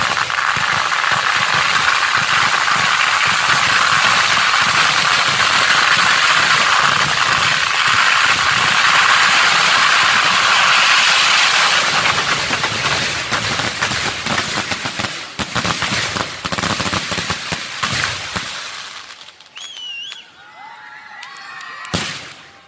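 A dense fireworks barrage with firecrackers going off at ground level. It is a continuous rapid crackle of bangs that thins into separate bangs after about twelve seconds and dies away, with one last sharp bang near the end.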